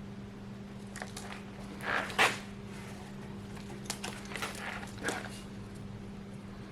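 Light knocks and scrapes of handling a tape measure and tools while laying out a 6x6 timber, the loudest a sharp knock a little over two seconds in, over a steady low hum.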